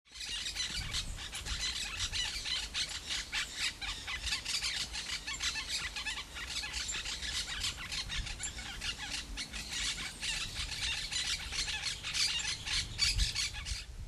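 A flock of birds calling all at once: a dense chatter of many overlapping shrill chirps and squeals, with a low rumble underneath.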